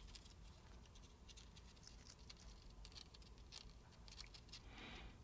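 Faint, scattered small ticks and crinkles of a thin 5 thou plastic strip being folded back and forth accordion-style between the fingers, with a soft rub near the end.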